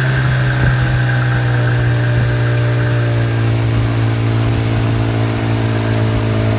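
Engine running steadily, with a higher whistle riding over it that fades out about halfway through; the cause of the whistle is unknown.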